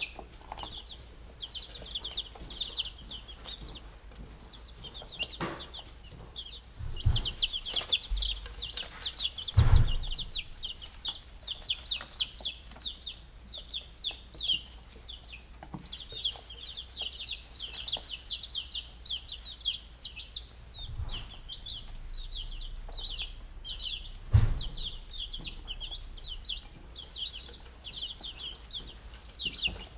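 A brood of baby chicks peeping continuously, many short high cheeps overlapping. A few dull knocks sound among them, about a third of the way in and again later.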